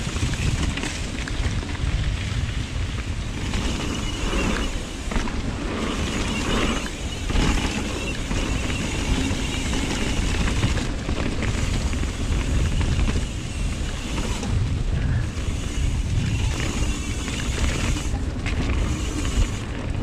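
Trek Remedy mountain bike ridden downhill over rough, wet trail, with wind rumbling on the action-camera microphone and the bike rattling and knocking over rocks and roots.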